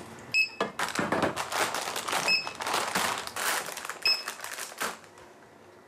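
Supermarket checkout barcode scanner beeping three times, about two seconds apart, as goods are scanned, amid the clatter and rustle of items being handled across the counter. The handling noise stops near the end.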